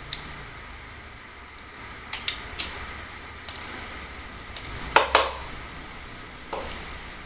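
Metal parts and tools clicking and clinking against each other as an air rifle is taken apart by hand: scattered sharp clinks, several at a time, with the two loudest close together about five seconds in.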